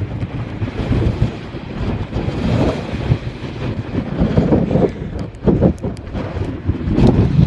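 Strong gusty mountain storm wind buffeting the microphone, rumbling and surging in uneven gusts, with a few faint sharp ticks in the second half.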